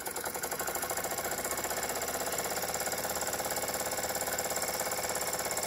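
Jensen 25GR toy steam engine running under steam on its first steaming, beating out a rapid, even rhythm at a steady speed.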